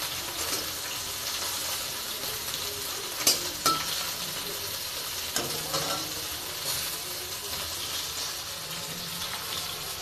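Two dried red chillies being fried in a hot pan: a steady sizzling hiss, with a utensil clicking against the pan a few times.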